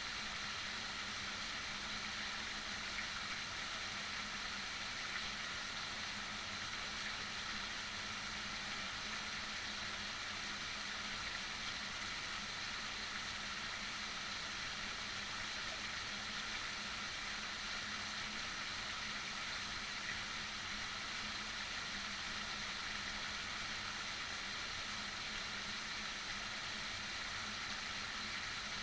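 Heavy rain falling in a steady, even hiss, with a faint low hum underneath.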